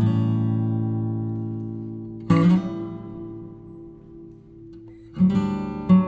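Background music: an acoustic guitar strums three slow chords, each left to ring and fade before the next.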